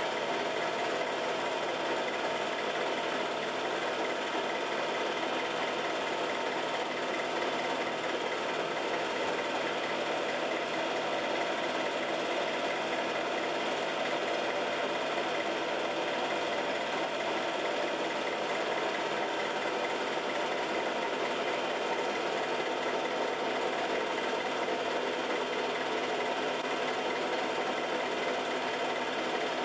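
Home-movie film projector running steadily, its motor and film-advance mechanism giving a constant mechanical whirr with a steady hum.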